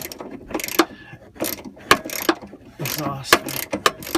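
Socket wrench ratchet clicking in short strokes, a few uneven clicks a second, as a muffler mount bolt is turned loose.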